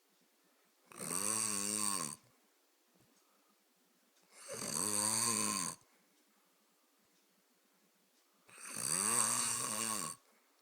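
Snoring: three drawn-out snores about every three and a half seconds, each lasting a second or so with a wavering pitch, and near silence between them.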